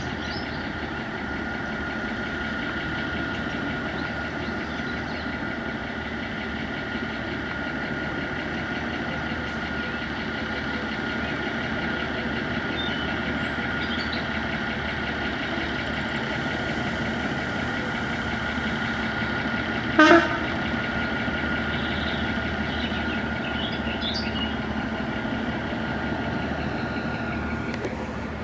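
Diesel railway locomotive or unit running steadily, with a steady whine over the engine noise. A brief, loud sharp sound comes about 20 seconds in.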